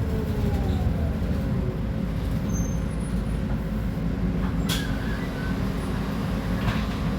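Scania K310UB city bus's rear-mounted diesel engine running with a steady low rumble, a faint whine falling in pitch near the start. A brief sharp click or hiss about two-thirds of the way through.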